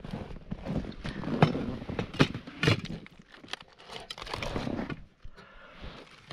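Aluminium foil crinkling and a metal muffler-mounted cooking pot knocking as a foil-wrapped meal is handled in it, with several sharp clicks and knocks in the first three seconds.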